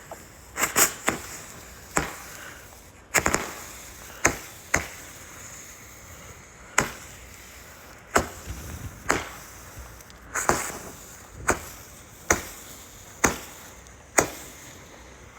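Fireworks going off: sharp bangs at irregular intervals, roughly one a second, each with a short trailing echo.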